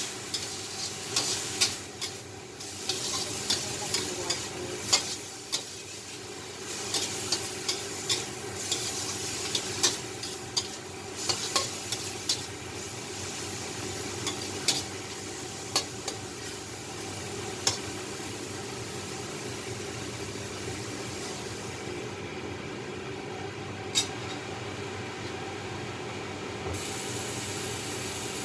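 Sliced mushrooms sizzling as they fry in a metal wok, stirred and scraped with a spatula. The spatula clicks and scrapes against the pan often over the first two-thirds, then the frying goes on steadily with only a single clink later.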